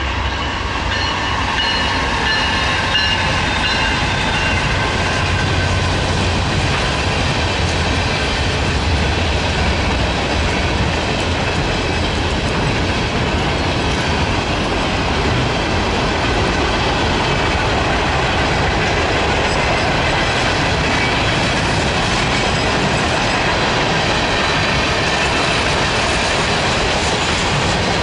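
A freight train passing: a deep rumble through the first several seconds as the locomotive goes by, then the steady rumble and clatter of hopper and tank cars rolling past. High steady tones in the first few seconds fade away.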